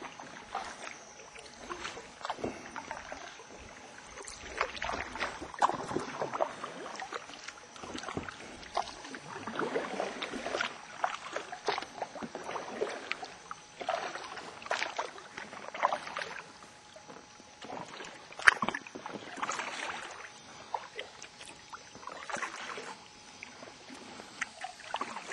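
Paddle strokes and water splashing beside an inflatable sea canoe being paddled, irregular swishes every second or two, with one sharp knock about two-thirds of the way through.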